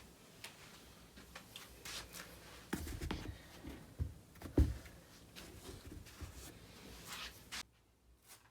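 Rustling and light knocks of sneakers being handled, with a couple of soft thumps about three and four and a half seconds in. The background hiss cuts out abruptly near the end.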